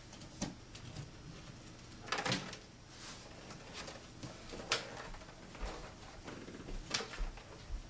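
A handful of separate knocks and clunks, with a longer clatter about two seconds in: a cupboard door and a vacuum cleaner being handled, the machine not running.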